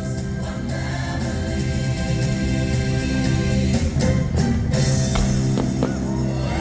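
Music with singing voices over a steady beat; near the end a few quick swooping, whistle-like glides come in over it.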